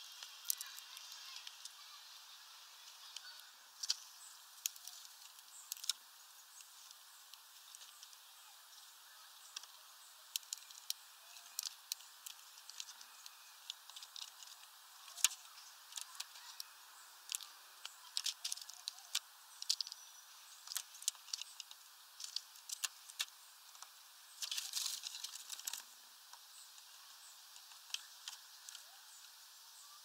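Irregular sharp clicks and taps of greenfinches pecking at seeds on a plastic feeder tray, coming in quick runs, with a dense flurry of clicking about 25 seconds in.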